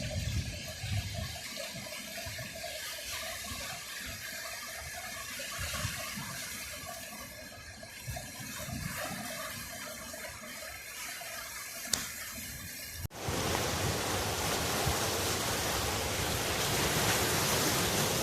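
Sea surf washing on the shore with wind rumbling on the microphone; about thirteen seconds in it cuts sharply to a louder, steady rush of surf.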